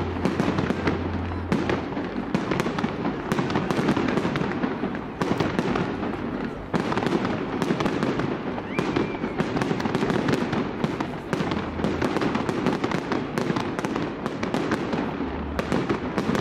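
Fireworks display: aerial shells bursting overhead in a dense, continuous run of bangs and crackling.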